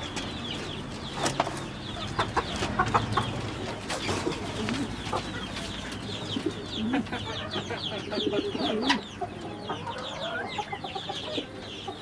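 Chickens clucking over a constant chatter of many small caged birds chirping, with a few sharp knocks as a gold-laced Polish hen is taken out of its wooden wire-mesh cage.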